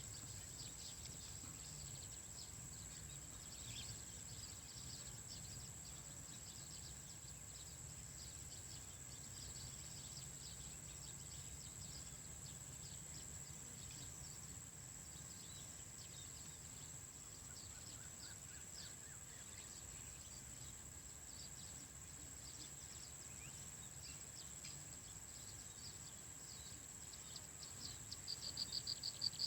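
Natural insect and bird ambience: a steady high-pitched insect drone with scattered short chirps and one rising call about halfway through, over a low rumble. Near the end a louder pulsing insect trill, like a cricket's, starts up.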